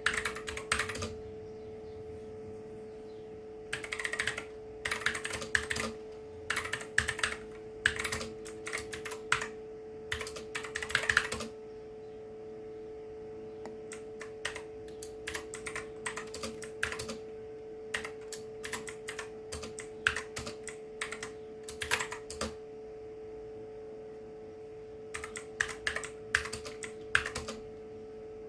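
Mechanical keyboard with clicky blue switches being typed on in bursts of rapid keystrokes separated by short pauses, over a steady low electrical hum.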